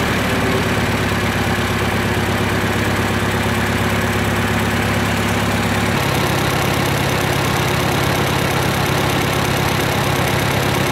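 1955 Farmall Cub tractor's four-cylinder gasoline engine running steadily on its first run after an engine swap. Its note changes about six seconds in.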